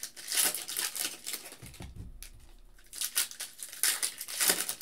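Foil packs of Panini football trading cards crinkling and being torn open by hand, with the rustle of cards being handled. Irregular crinkles ease off for a moment about two seconds in, then come back louder near the end.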